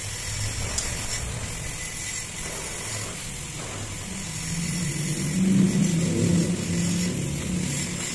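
Steady hiss of a gas welding torch melting aluminium onto a motorcycle cylinder head. An engine runs under it, swelling about halfway through and loudest around two-thirds in, then easing.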